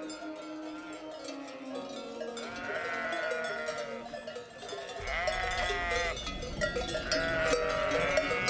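A flock of sheep bleating, overlapping calls that come loudest about three, five and seven seconds in.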